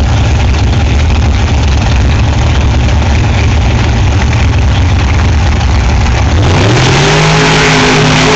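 Rear-engine dragster's engine running loud with a heavy low rumble at the start line, then about six seconds in it revs up and launches, pulling at full throttle as the car leaves.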